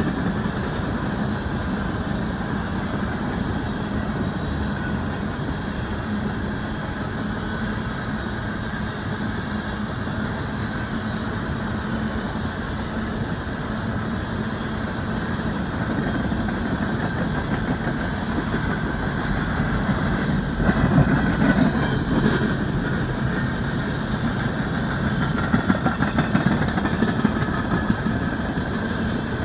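BNSF empty coal train rolling past: a steady rumble of wheels on rail, louder for a couple of seconds about two-thirds of the way through.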